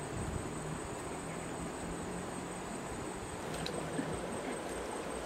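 Outdoor ambience: a steady, thin high-pitched insect drone over a soft even hiss, with a few light rustles of grass near the end.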